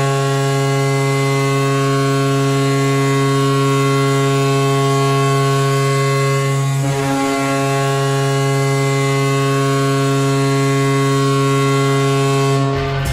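Goal horn sounding one long, loud, steady low blast, with a brief wobble in pitch about seven seconds in; it cuts off near the end.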